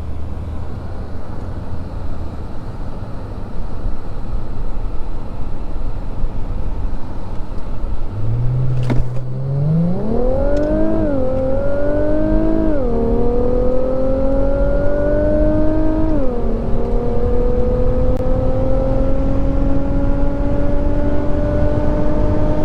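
Infiniti Red Sport 400's 3.0-litre twin-turbo V6 under a hard full-throttle pull from a standstill. A low steady rumble for about eight seconds, then the engine note climbs quickly, drops sharply three times as the automatic gearbox upshifts, pulls on with a long slow rise in a high gear, and falls away near the end as the throttle is lifted.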